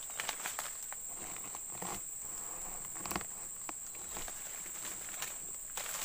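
A steady high-pitched insect drone, with footsteps crunching through dry leaf litter and twigs on the forest floor, heard as scattered crackles and snaps.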